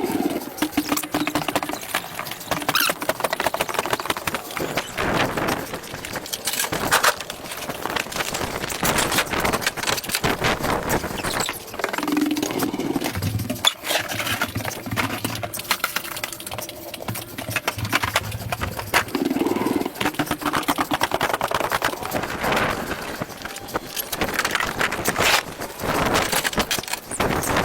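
A man breathing hard and heavily close to the microphone, with irregular knocks and rustling of items being handled.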